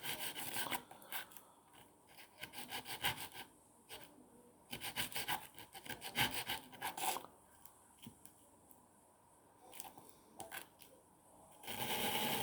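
Stainless steel broadhead blade rubbed along its bevel on wet-and-dry sandpaper: several bursts of quick scraping strokes with short pauses between them.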